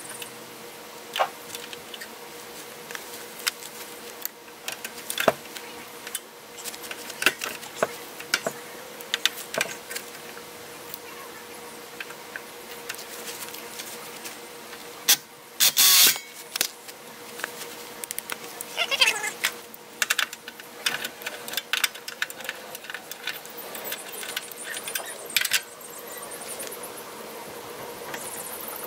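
Irregular metallic clicks, taps and scrapes of hand tools and stiff wire being worked into a metal electrical meter base, with a faint steady hum underneath and a louder rustling scrape about fifteen seconds in.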